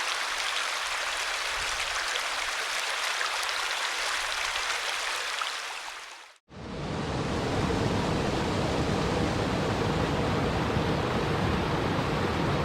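Running river water, a steady rushing hiss that fades out to silence about halfway through, then fades back in as a deeper, fuller rush of water.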